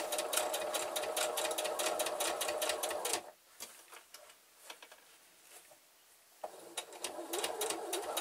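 Singer electric sewing machine stitching through thick padded fabric in a fast, even run of needle strokes. It stops about three seconds in and starts stitching again about three seconds later.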